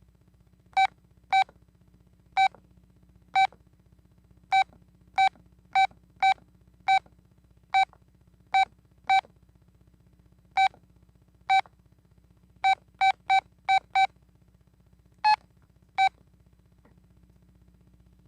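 Keypad beeps of a Telit mobile phone as its keys are pressed: about twenty short, identical beeps at uneven intervals, some in quick runs, with one slightly higher beep near the end.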